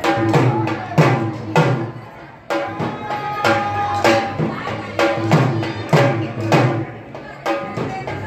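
Dhol drumming in a slow, steady dandiya rhythm of about two ringing strikes a second, with the clack of wooden dandiya sticks struck together. There is a brief lull about two seconds in, then the beat resumes.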